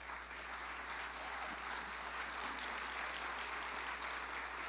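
Audience applauding steadily, swelling in right at the start.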